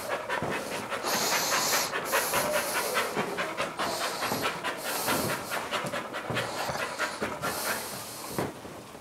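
A dog panting rapidly and rhythmically, the stress panting of an anxious dog being introduced to an e-collar. A few short bursts of high hiss come and go over it.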